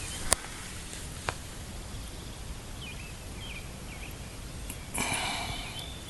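Quiet outdoor ambience with a few faint bird chirps, two sharp clicks in the first second and a half, and a brief rustling scrape about five seconds in.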